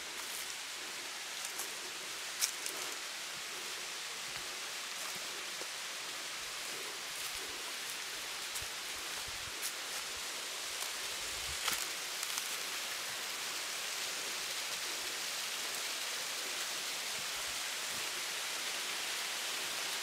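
Waterfall rushing: a steady, even hiss of falling water that grows slightly louder, with a couple of faint sharp clicks.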